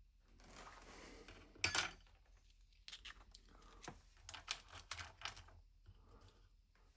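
Small watchmaker's lathe accessory pieces being handled: a soft rustle, one sharp click, then a run of light clicks and clinks as the parts are picked up and set down.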